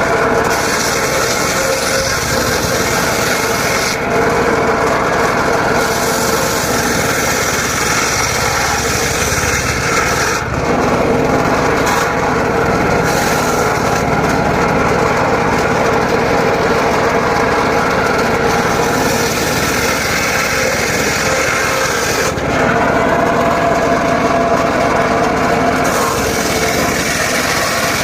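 Circular saw cutting dry teak wood, running continuously with its sound changing every few seconds as the blade goes into and out of the wood.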